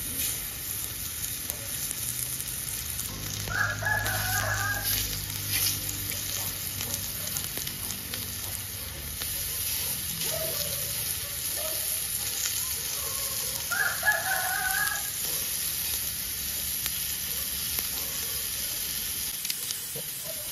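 Pork belly slices sizzling on a hot mookata dome grill, with a rooster crowing twice, about four seconds in and again about fourteen seconds in.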